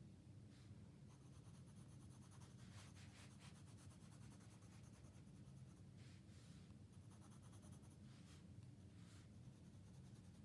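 Faint scratching of a brown colored pencil on sketchbook paper, quick back-and-forth shading strokes in several short runs, as small mountain triangles are sketched in.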